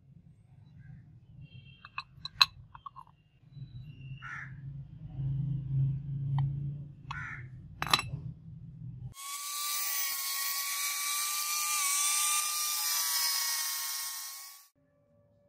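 A crow caws a few times and metal parts click as they are handled. About nine seconds in, an angle grinder with a cutting disc starts cutting into an aluminium sheet: a loud, steady high whine with a hiss over it for about five seconds, which cuts off suddenly.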